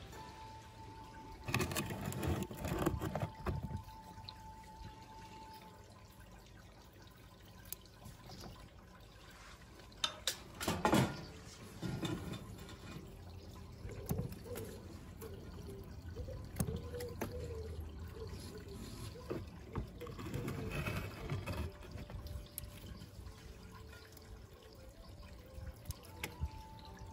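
Bonsai scissors snipping the shoots of a Chinese elm, with the leaves rustling against the blades and hand, in three short bursts of clicks: near the start, around the middle and about two-thirds through.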